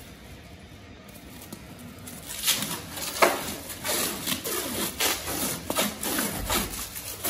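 Plastic stretch wrap being pulled off its roll and wound around a horse's hoof over a wet HoofCast, to hold the cast in position while it cures. It comes as a run of short noisy pulls, about two or three a second, starting a couple of seconds in.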